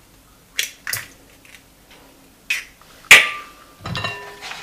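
A few sharp taps and clinks on a glass mixing bowl as a whole egg is cracked and dropped in. The loudest knock comes about three seconds in and leaves a brief ringing from the glass.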